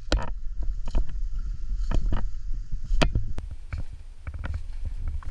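Footsteps crunching through dry fallen leaves and twigs, with a loud crunch about once a second and smaller rustles between, over a low rumble.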